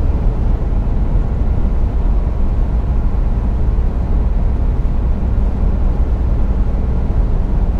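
Car driving along a motorway, heard from inside the cabin: a steady, deep rumble of road and wind noise.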